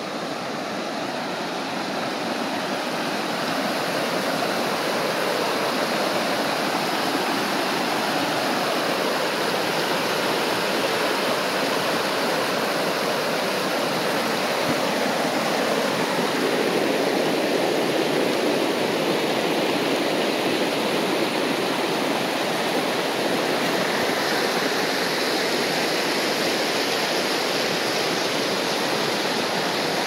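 Fast mountain stream rushing over rocks in a steady, unbroken rush of water, growing a little louder over the first few seconds and then holding even.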